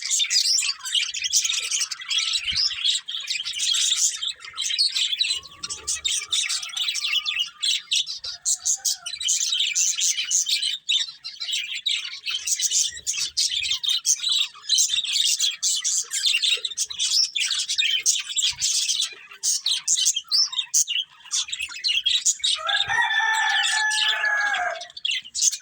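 A flock of budgerigars chattering and chirping nonstop in quick, high twittering notes. Near the end, a lower, longer call lasts about two seconds over the chatter.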